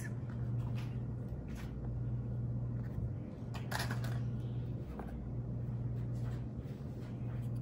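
A few faint, brief rustles of a paper cookie wrapper as Chessmen butter cookies are taken out and laid on the pudding, over a steady low hum.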